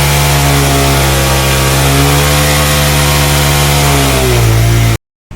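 Bajaj Pulsar 220 single-cylinder engine held at high revs during a burnout, the rear tyre spinning on the spot. The engine note stays steady, sags about four seconds in, then cuts off abruptly.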